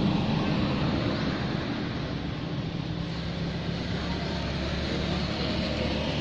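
A motor engine running steadily, a low hum over a noisy rush.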